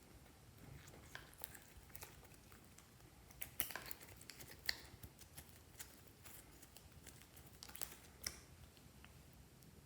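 Slime being kneaded and stretched by hand, giving faint sticky clicks and small pops, with a few sharper ones near the middle and again near the end.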